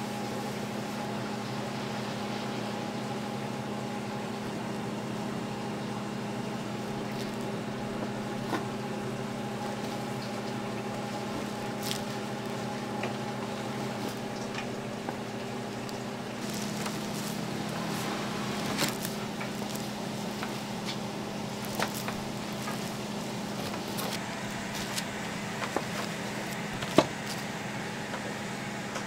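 A steady mechanical hum, with scattered light clicks and taps of handling and a sharper click near the end.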